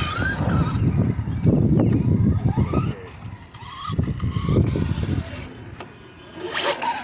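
Traxxas Slash 2WD RC drag truck's electric motor revving in bursts while the rear slick tires spin in a burnout. The longest burst lasts about three seconds, followed by a shorter one about four seconds in and a brief one near the end.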